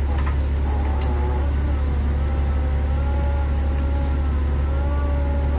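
Truck-mounted crane's engine running steadily under a constant low drone, with a wavering multi-tone whine that rises and falls gently as the crane is worked to take up its chain slings.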